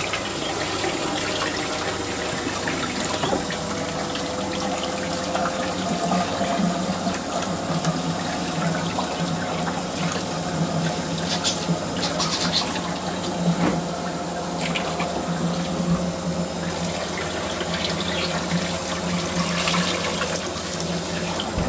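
Water running steadily from a hose over a wet dog's coat and splashing down into a plastic tub.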